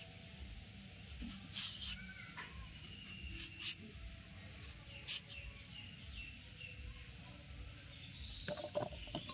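A potato being cut with a blade, heard as a few scattered sharp clicks, while birds chirp in the background.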